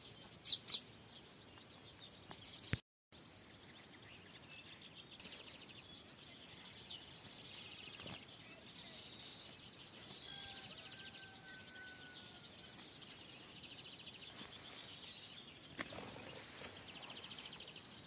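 Faint twittering and chirping of small songbirds. A few short clicks come in the first three seconds.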